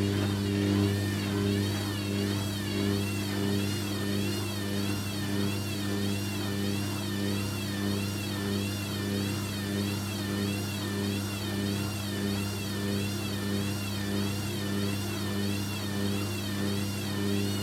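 Hoover Quattro AE130 washing machine running on a spin, its motor giving a steady hum under a higher whine that wavers in pitch about once a second.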